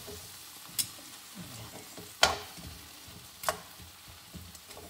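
Metal tongs clacking against a nonstick grill pan while turning sautéing vegetables, over a faint sizzle of frying mackerel and vegetables. Three sharp clacks, the loudest about two seconds in.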